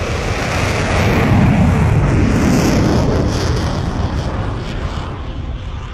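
GAZ Sobol rally van accelerating hard along a dirt track, heard from inside the cabin: a loud, rough rumble of engine, tyres and road noise. It swells about a second in and eases off slowly toward the end.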